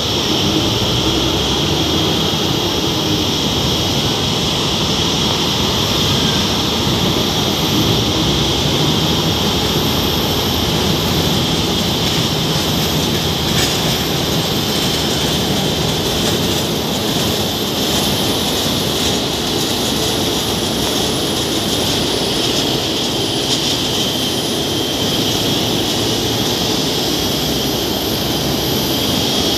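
Airbus A350-900's Rolls-Royce Trent XWB jet engines running at taxi power: a steady rushing noise with a high whine.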